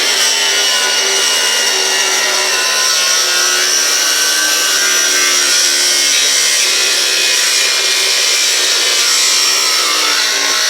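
A power tool runs continuously on metal for about ten seconds, a loud steady grinding noise with a high whine on top, and then stops abruptly.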